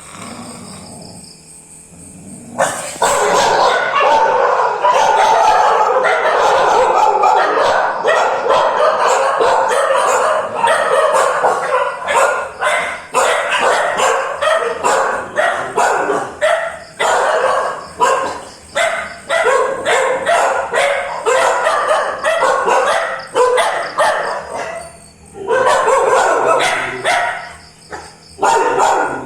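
A dog barking loudly and rapidly, bark after bark, starting about two and a half seconds in, with one short break near the end before it resumes.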